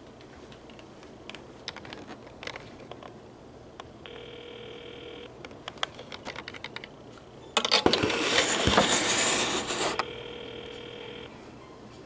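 Taps and clicks, then a call ringing through: a short steady ringback tone sounds twice, and between them the AT&T 4200 cordless phone's electronic ringer rings loudly once for about two and a half seconds.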